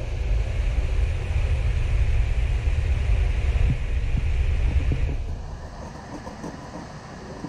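Low rumble of a vehicle passing, swelling in at the start, holding for about five seconds and then fading away.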